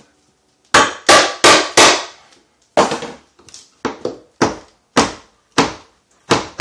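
Repeated sharp knocks of a Stanley Super Wonder Bar pry bar being driven into the wooden frame of an old kitchen wall cabinet. Four quick strikes come in the first couple of seconds, then a steady run of about two a second.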